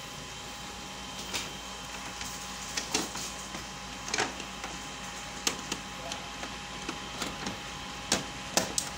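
Irregular sharp plastic clicks and knocks as parts are handled and seated inside the open drum and toner bay of a Kyocera ECOSYS M6630 colour laser printer, over a steady hum.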